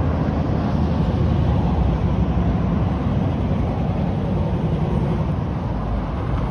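1969 Chevrolet Camaro's engine running as the car drives toward the listener, a steady deep exhaust note.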